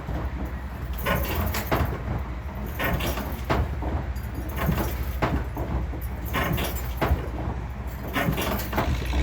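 Hammer blows on hot iron at a blacksmith's anvil: irregular sharp metallic strikes, often two close together, about one or two a second, over a steady low hum.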